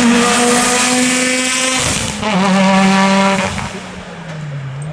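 Hill-climb race car engine at high revs under full throttle, with a gear change about two seconds in. Near the end it gets quieter and its pitch falls.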